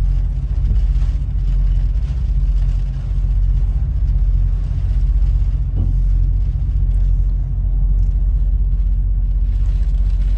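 Steady low hum of an idling semi-truck diesel engine, heard from inside the cab.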